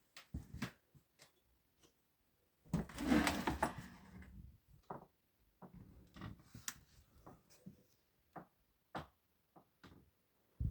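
Irregular wooden knocks and clicks, with a louder scraping rustle lasting about a second and a half, starting a little under three seconds in.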